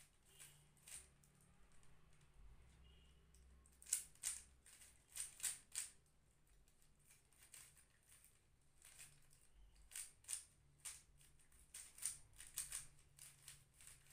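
Rubik's cube layers being turned by hand: soft irregular plastic clicks and clacks, coming in quick clusters with short pauses between them.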